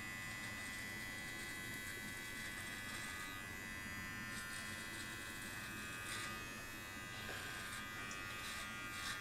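Manscaped Lawn Mower 4.0 cordless body trimmer running, a steady, quiet electric buzz with a high whine, its blades held against the skin of the belly.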